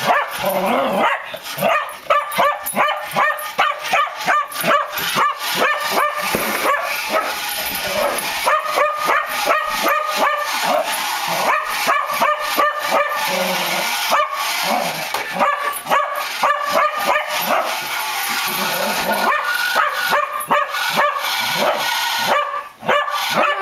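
A spaniel barking over and over at a remote-control toy car, about two to three sharp barks a second, with a brief pause near the end.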